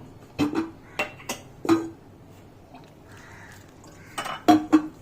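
Metal kitchen utensils and dishes clinking while water is gradually added to whole wheat flour for a dough: a run of sharp clinks in the first couple of seconds and another cluster near the end.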